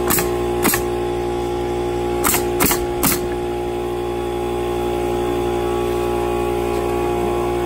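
Pneumatic nail gun firing five times into cedar fence boards: two shots about half a second apart at the start, then three in quick succession a couple of seconds later, over a steady background of held tones.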